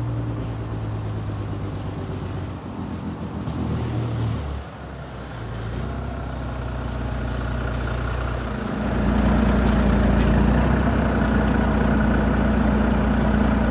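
Heavy lorry's diesel engine running as the truck comes up the road and stops. About nine seconds in it turns louder and steady, idling close by.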